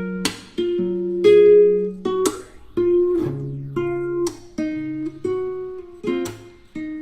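Background music: plucked acoustic guitar playing a gentle melody, with a clear pick attack on each note.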